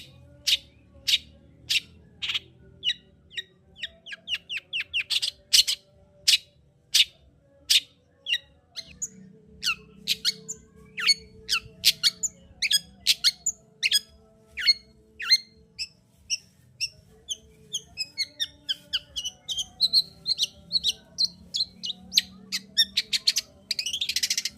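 Long-tailed shrike (cendet) in full song: a run of sharp, clipped calls about two a second, breaking into quicker, busier chatter in the second half and ending with a harsh rasping burst.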